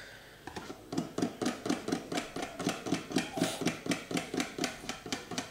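Wire whisk beating pancake batter in a plastic bowl: a quick, even run of clicks and slaps, about five strokes a second, starting about half a second in.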